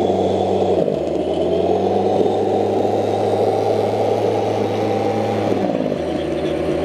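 Simulated diesel engine sound from an RC American semi tractor's sound unit: a steady low engine hum that dips briefly about a second in, then slides down in pitch near the end as the revs drop.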